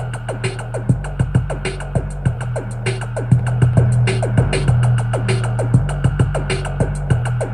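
Music with a steady beat and a heavy bass line playing loud from a portable Bluetooth speaker with a 5.5-inch subwoofer and passive radiator, its bass turned all the way up. Quick, even hi-hat ticks run over the bass.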